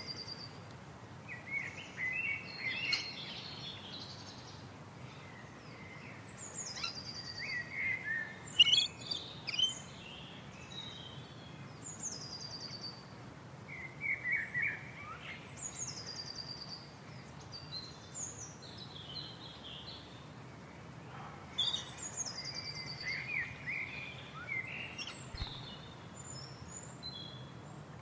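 Birdsong: several birds chirping, one of them repeating a short high falling phrase every few seconds.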